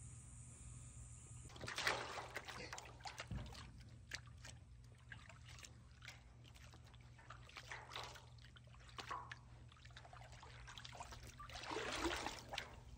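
Water splashing and sloshing in a metal stock-tank pool as a big cat paws at a floating watermelon. The biggest splashes come about two seconds in and again near the end, with smaller splashes and drips between.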